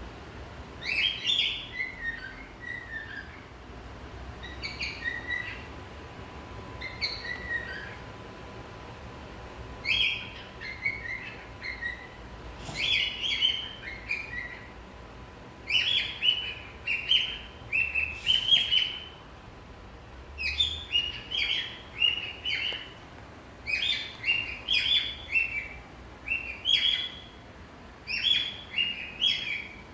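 Male cockatiel singing: short phrases of whistled chirps, some sliding down in pitch, repeated with brief pauses and coming closer together in the second half.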